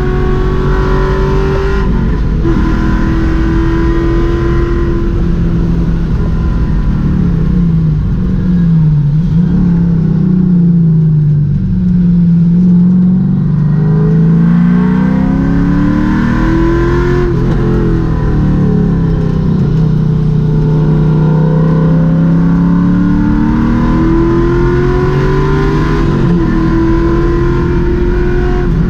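V8 engine of a V8-swapped Porsche 968 race car, heard from inside the cockpit, revving hard on track. Its pitch falls sharply as it lifts and downshifts for corners, about two seconds in and again around the middle. Then it climbs steadily as it accelerates back up through the revs.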